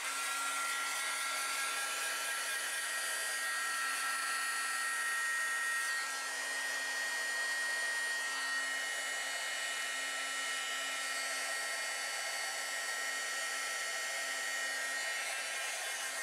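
Handheld Wagner heat gun blowing hot air to dry Mod Podge on a paper doily: a steady rush of fan noise with a couple of steady whistling tones and a low hum.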